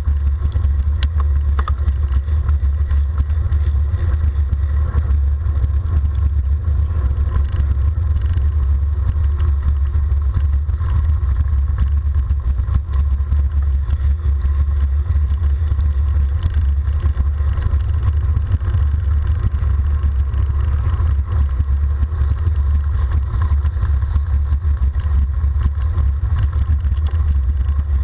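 Steady low wind rumble buffeting a camera microphone mounted on a vehicle descending a paved mountain road, with faint road noise beneath it.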